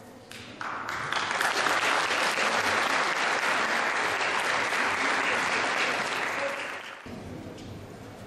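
Audience applauding. The clapping starts about half a second in and dies away about seven seconds in.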